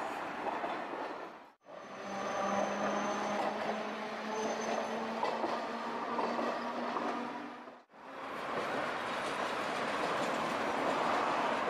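Tosaden streetcar running along the street tracks beneath, with a steady hum and higher whine from its electrical equipment. The sound drops out briefly twice, at about a second and a half in and again near eight seconds. After that there is an even wash of street and tram running noise.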